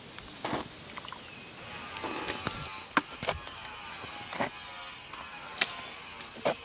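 Mortar work with a metal trowel: a string of sharp knocks and wet slaps as wet mortar is scooped and laid onto rough stones.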